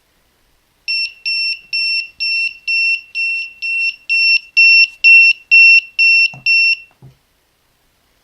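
Electronic alarm buzzer on an Arduino-built alarm clock beeping: about fourteen short, high, same-pitched beeps, a little over two a second, getting louder towards the middle, then stopping. A couple of faint knocks follow near the end.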